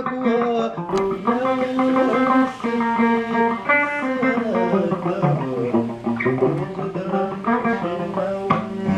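Guitar music: plucked electric guitar lines over bass, played steadily.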